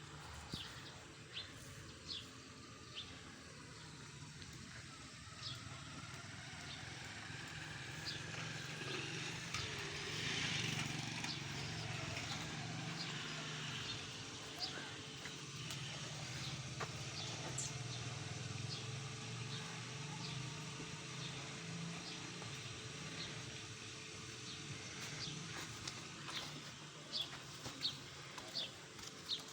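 Small birds chirping in short, high calls scattered throughout, over a steady low rumble that grows louder in the middle and fades toward the end.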